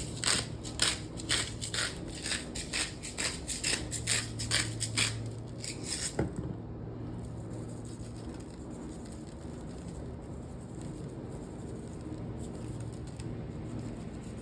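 Seasoning being dispensed onto raw lamb chops: short rasping strokes about four a second for about six seconds, ending with a single click.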